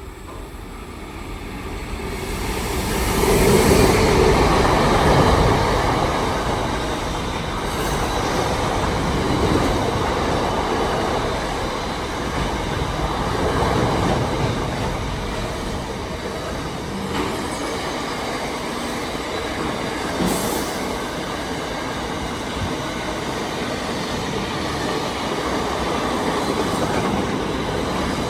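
Container freight train led by locomotive 8103, an 81 class diesel-electric, passing through the station without stopping. It builds to its loudest about three to four seconds in, then holds as a long steady run of wagons rolling past on the rails, with a few clicks.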